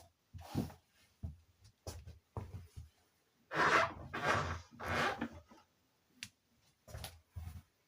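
Packaging being handled: scattered soft knocks and rustles, with three louder rustling, tearing sounds about halfway through, as of plastic wrap or tape being pulled off.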